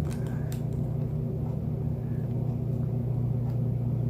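A steady low machine hum, with a few faint clicks in the first half second.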